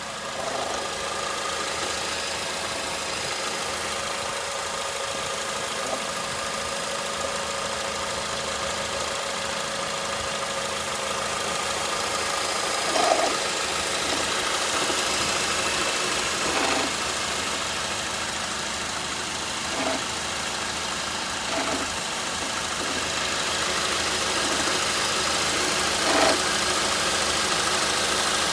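2007 Honda Accord 2.4L four-cylinder engine idling steadily, broken by several brief, irregular rattles, the loudest about halfway through and near the end. The intermittent rattle comes from worn alternator bearings.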